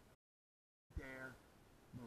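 A man's short, pitched groan falling in pitch about a second in, with a soft bump at its start; another groan begins near the end. Before it the sound cuts out to dead silence for under a second.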